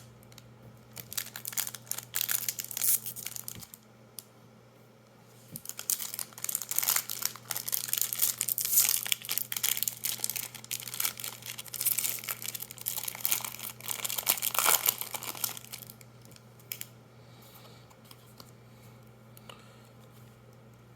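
Foil trading-card booster pack wrappers crinkling and tearing as they are opened by hand, in two spells, the second much longer, then only a faint steady low hum.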